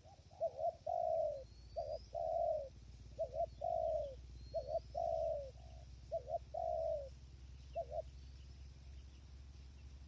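Spotted dove cooing: five phrases, each a quick pair of notes followed by a longer drawn-out coo, then a last short pair of notes about eight seconds in. A faint high rising whistle from another bird repeats about every two seconds, over a low wind rumble.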